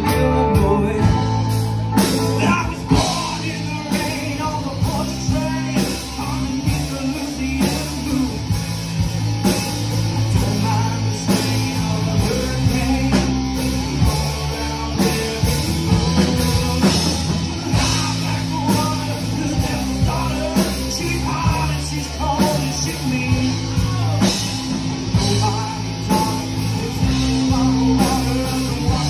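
Live rock band with electric guitars, bass and a drum kit playing an instrumental intro over a steady drum beat.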